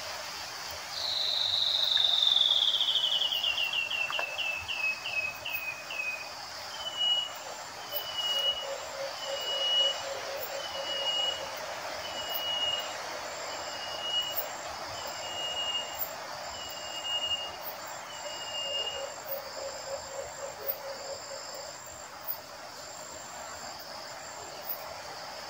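A bird calls: a run of high whistled notes that falls in pitch and speeds up, followed by a slow series of single short whistles about one every second and a half. Insects chirr steadily throughout.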